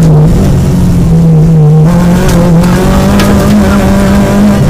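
Peugeot 205 GTI's four-cylinder engine at high revs, heard from inside the cabin, the pitch dipping briefly on short throttle lifts and climbing again. A couple of sharp knocks about two and three seconds in.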